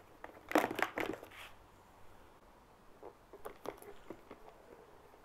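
Clear plastic food container being handled and fitted onto a boat deck: a cluster of plastic knocks and rustles about half a second in, then a few light clicks a few seconds later.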